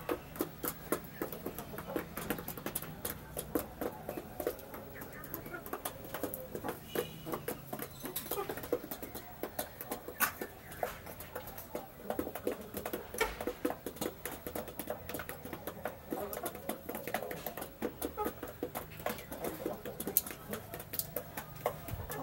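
Half-grown chickens pecking at their feed: a dense run of irregular sharp taps, with a soft call now and then.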